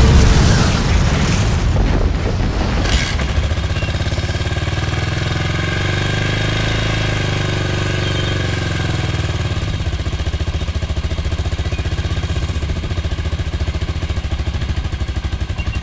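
1980 Yamaha XT500's single-cylinder four-stroke engine running just after its first start of the year: louder for the first two or three seconds, then settling into a steady, evenly pulsing idle, with a gentle rise and fall in revs about halfway.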